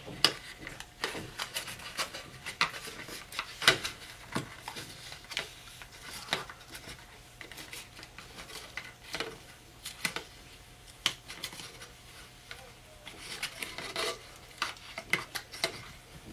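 Irregular small clicks, taps and scrapes of hand tools and a plastic card prying and peeling apart the layers of a smartphone display assembly.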